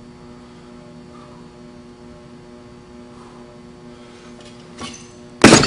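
Steady electrical hum. About five seconds in comes a faint knock, then half a second later a sudden loud thud as a man crashes down from a botched backflip off a balance beam.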